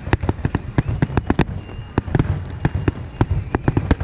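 Aerial firework shells bursting one after another in quick, irregular succession, about five sharp bangs a second over a low steady rumble.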